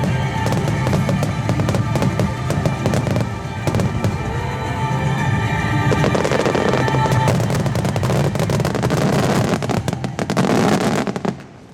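Wide starmine fireworks barrage: a dense run of shell bursts and crackling over music played with the show, dropping off sharply just before the end.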